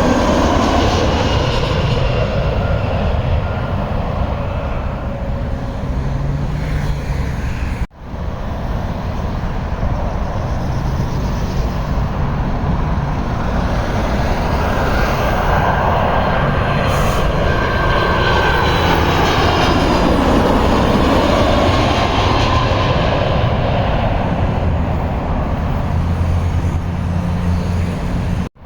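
Jet airliners on final approach passing low overhead, their engines loud and steady. The sound cuts off abruptly about eight seconds in and picks up with another aircraft, whose tone sweeps down and back up as it goes over.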